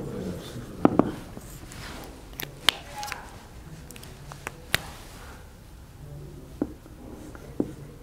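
Marker pen writing on a whiteboard, with scattered sharp taps and clicks of the pen against the board.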